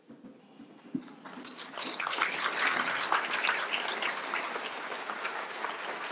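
Audience applauding, building up from quiet over the first two seconds and then going on steadily, with a single knock about a second in.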